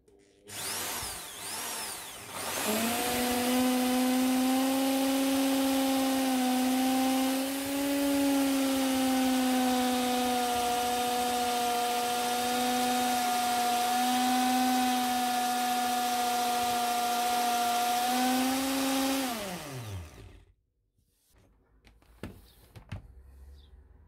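Electric drill driving a hole saw into the van floor. The trigger is blipped twice, then the motor runs in a steady whine for about sixteen seconds, sagging slightly in pitch now and then under load, before it winds down with a falling pitch. A couple of light clicks follow near the end.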